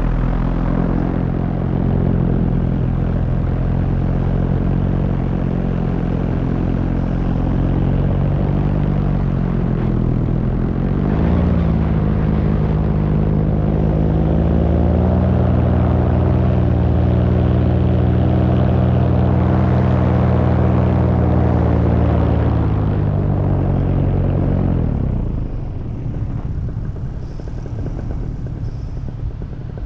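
Paramotor engine and propeller running steadily in flight, heard from the pilot's seat with wind rush on the microphone. About ten seconds in the pitch dips and climbs back as the throttle is eased and reopened. About 25 seconds in the engine sound falls away, leaving mostly wind noise.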